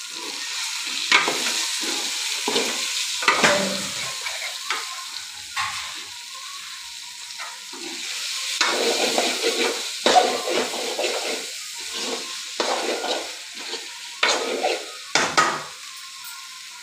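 Hard-boiled eggs being stirred through thick masala in an aluminium kadai, the spoon scraping and knocking irregularly against the pan over a steady sizzle of frying.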